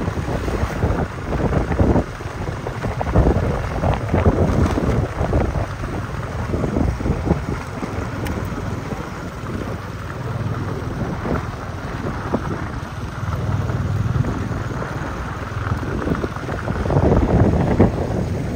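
Wind buffeting the microphone: an uneven low rumble that swells and falls.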